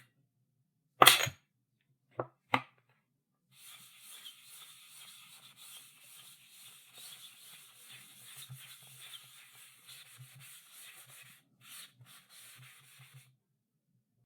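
Chalk on a chalkboard: one sharp tap about a second in and two lighter taps a little later, then a long stretch of chalk scratching across the board in writing strokes, with a couple of short breaks, stopping shortly before the end.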